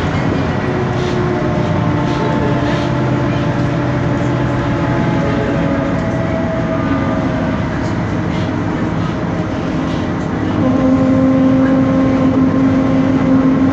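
Noisy rear differential of a BMC Belde 285CB city bus whining, heard inside the cabin over the running Cummins ISBe 6.7 diesel and road noise. The whine holds several steady tones that drift in pitch and gets louder about ten seconds in.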